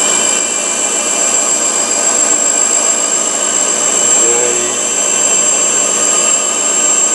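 Oliver HD300 tool grinder running, its cup wheel grinding the cutting edge of an 82-degree countersink: a steady, unbroken whine with a strong high tone over hiss.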